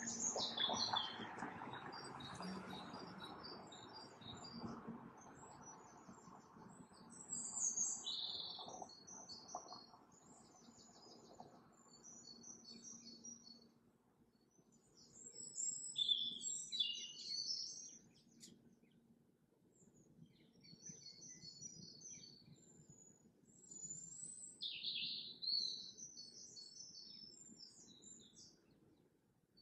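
Small birds chirping and trilling in a steady stream of short high calls, with a soft hiss of noise underneath in the first few seconds.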